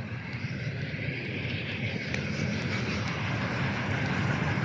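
Steady low rumble of a vehicle, slowly growing louder.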